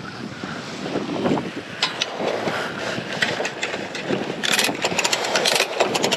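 Wind and sea rushing past a sailboat heeled hard upwind, with wind buffeting the microphone. About four and a half seconds in comes a burst of rapid clicks and rattles as the mainsail is reefed and its reef cringle's metal rings are handled at the boom.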